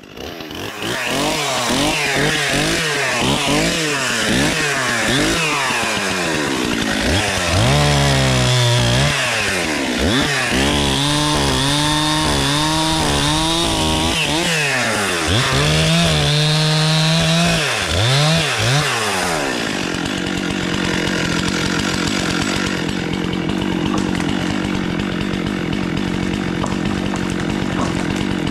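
Stihl MS 261 two-stroke chainsaw cutting into a tree trunk, its engine pitch rising and falling again and again as the chain bites and is eased off. About 19 seconds in, it settles to a steady, even running note.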